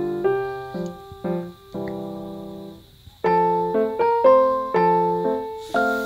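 Gentle piano background music: chords struck one after another and left to fade, with a brief pause about three seconds in before it picks up again.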